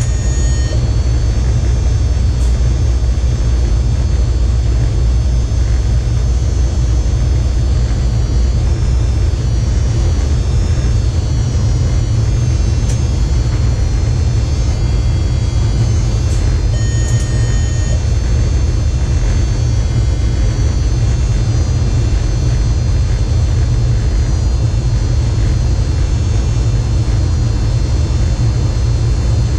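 Steady low rumble of an electric train running at speed, heard inside the driver's cab, with a steady whine of thin tones over it. A short electronic beep sounds at the start and again about halfway through.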